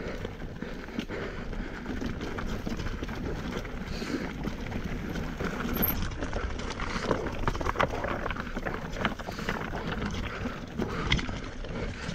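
Mountain bike ridden over a dirt trail: steady tyre and wind noise with frequent clicks and rattles from the bike.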